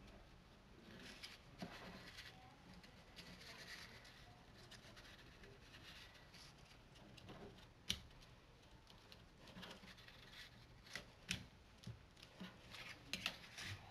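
Faint rustling and rubbing of cardstock as a glued gold-foil rail piece is fitted and pressed onto a red cardstock sleigh side, with one sharp tap about eight seconds in and a run of light taps and clicks near the end.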